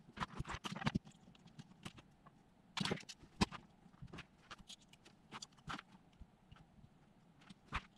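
Light, irregular clicks and taps of hand work while soldering motor wires onto a drone's ESC: the soldering iron, wires and carbon frame knocking against each other and the desk mat, with a sharper tap about three and a half seconds in.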